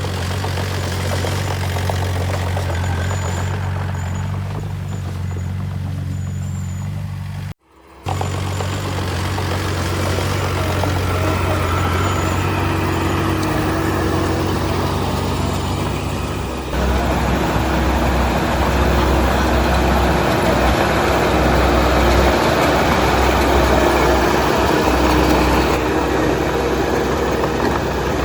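Heavy diesel engine of a construction machine running steadily. It cuts out briefly about seven and a half seconds in, then returns, and at about seventeen seconds it changes to a deeper, rougher and louder running.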